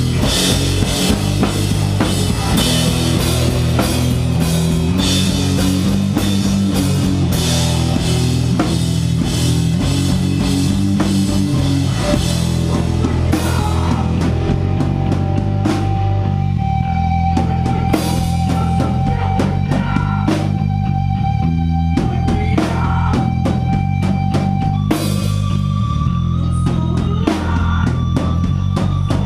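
Hardcore band playing live: distorted guitar, bass and a drum kit with rapid kick-drum strikes. About halfway through it thins to a sparser part with drum hits under one long held note, then the full band comes back in near the end.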